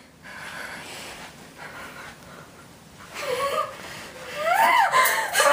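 Faint room tone for about three seconds, then a girl's voice making wordless vocal sounds that slide up and down in pitch.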